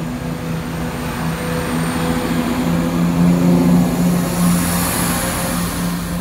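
East Midlands Railway Regional diesel multiple unit's diesel engines running with a steady hum as the train pulls away along the platform, getting louder about halfway through and then easing off as the last carriage passes.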